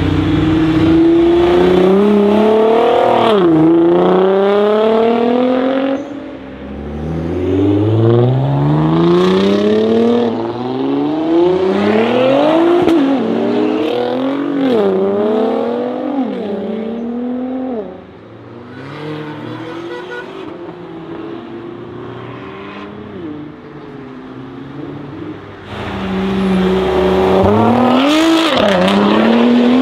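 Nissan GT-R R35 twin-turbo V6 engines accelerating hard as several cars pass one after another, pitch climbing through each gear and dropping sharply at every upshift. Quieter passes come in the middle, then louder ones again near the end.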